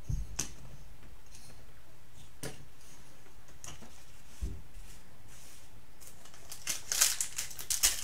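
A few light clicks and taps of trading cards and plastic card holders being handled, then from about six and a half seconds in, the crinkling of a foil trading-card pack being torn open, growing denser near the end.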